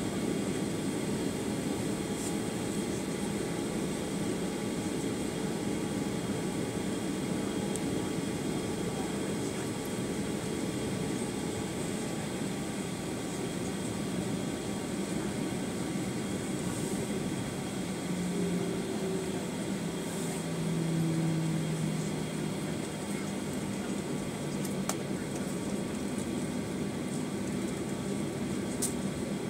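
Steady cabin noise of a Boeing 737-900ER taxiing, heard from inside the cabin: the CFM56 jet engines at idle and the air-conditioning hiss.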